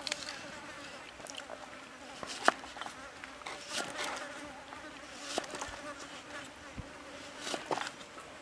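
Kitchen knife cutting a carrot into strips on a wooden chopping block: a series of irregular sharp taps as the blade meets the board, the loudest about two and a half seconds in. A steady low buzzing hum runs underneath.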